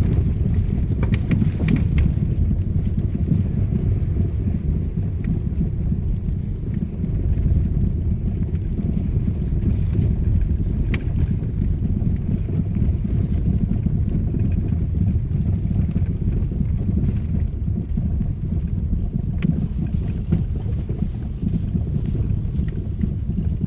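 Lada Vesta Cross SW on the move, a steady low road-and-tyre rumble with scattered knocks from the suspension, a rattling the owner likens to rain with hail: the suspension knock that is the car's fault.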